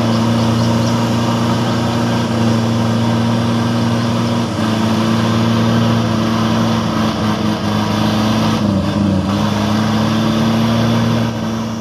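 Heavy truck's diesel engine held at full throttle under heavy load, running steadily with a brief dip about four and a half seconds in and some unevenness near the end: the laden truck is straining to climb out of deep mud.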